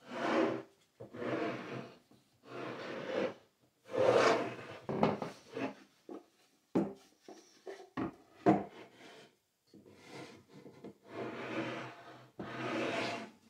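Small wooden drawers of a bandsaw box sliding in and out, wood rubbing on wood in repeated strokes of about half a second to a second. Several sharp wooden knocks come in the middle.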